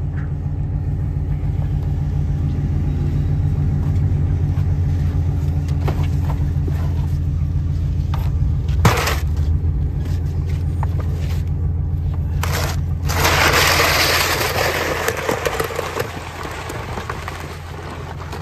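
An engine running steadily, a low hum that fades near the end, with a sharp knock about nine seconds in and a loud scraping rush from about thirteen to sixteen seconds.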